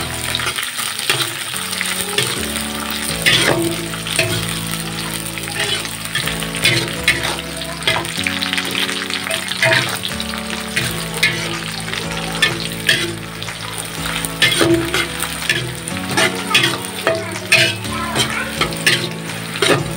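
Sliced red chillies and aromatics sizzling in hot oil in a wok as they are stir-fried, with a spatula scraping and tapping against the pan many times over the steady sizzle.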